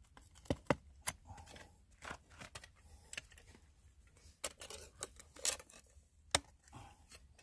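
Small hand pick scraping and chipping at hard-packed gravel and rock, working material out of the bedrock cracks. It makes irregular scrapes and sharp ticks, with a few louder strikes in the second half.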